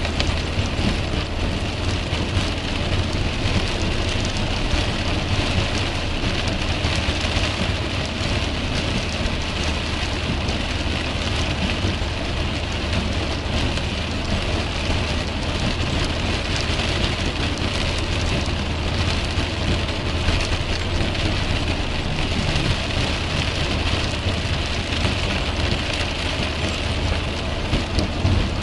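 Heavy rain hitting a car's windscreen and roof, over the steady rumble and hiss of tyres on a wet motorway, heard from inside the moving car.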